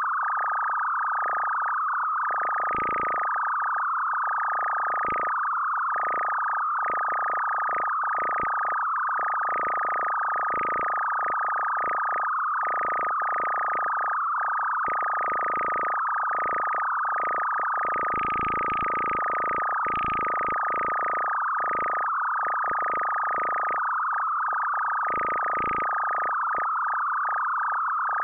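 A steady high-pitched electronic tone with a wavering, flickering texture around it that swells and thins irregularly, part of an electronic music track.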